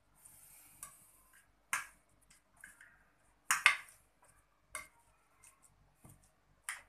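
A small utensil scraping and tapping against a glass baking dish while spreading chopped green onions and tomato: a few scattered sharp clicks and soft scrapes, the loudest about three and a half seconds in.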